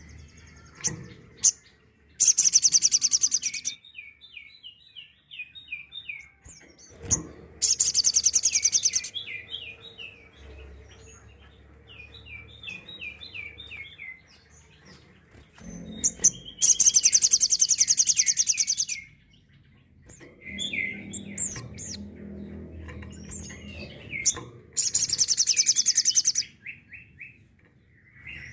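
Little spiderhunter (sogok ontong) singing its 'tembakan' song: four loud, very rapid high trills of about one and a half to two seconds each, spaced several seconds apart, with runs of short, falling chip notes between them.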